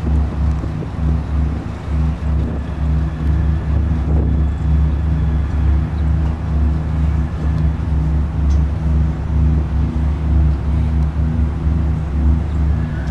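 A deep, steady rumbling drone with a few low tones layered over it: a GarageBand sound effect passed off as a strange noise from under the city streets.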